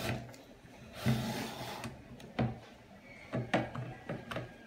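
Tubular roller-shade motor being slid into an aluminium roller tube: a scraping, rubbing slide, then a few sharp clicks and light knocks as the motor head seats at the tube end.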